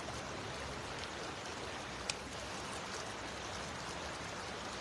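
Shallow creek water running steadily, with one short sharp click about two seconds in.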